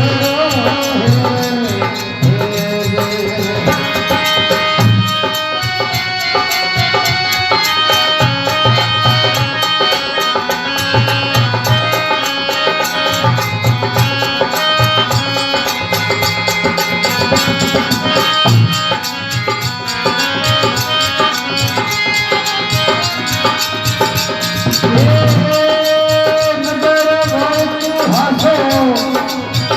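Marwari devotional folk song (bhajan): a sustained melody with a hand drum keeping a steady beat, and a singing voice at the start and again near the end.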